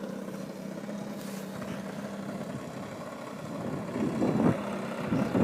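Saito 100 four-stroke glow engine of an RC model airplane running steadily at a low, even pitch, getting louder and rougher in the last second or so.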